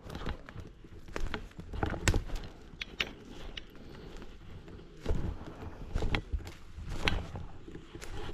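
Footsteps of a person walking through dry forest litter, a crunching step roughly once a second with a short pause midway.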